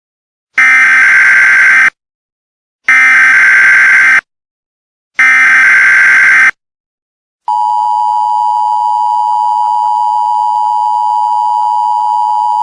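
Emergency Alert System tones. Three loud, identical screeching data-header bursts come about a second apart. Then, about seven seconds in, the long steady two-tone attention signal begins: a harsh drone of two close pitches announcing an emergency broadcast.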